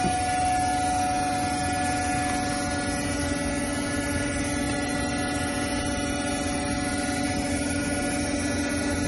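Steady electric hum of a hydraulic cutting press's motor and pump idling, several steady tones with no cutting strokes.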